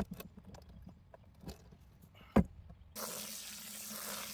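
A few sharp knocks of broken concrete chunks dropped into a planter pot, then about three seconds in a steady rush of running water starts abruptly.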